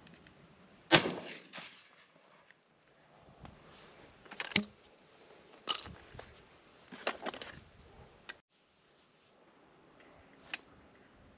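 A 12-bore shotgun fires once about a second in, a loud sharp crack with a short tail. Several quieter sharp clicks and knocks follow over the next few seconds.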